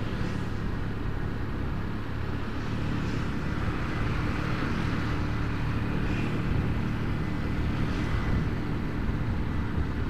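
Motorcycle engine running steadily while riding at an even speed, with a steady rush of road and wind noise over it.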